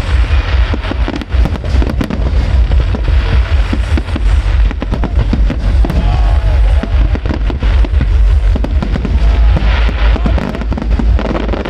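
A dense barrage of fireworks going off: rapid, overlapping bangs and crackles over a heavy, continuous low rumble.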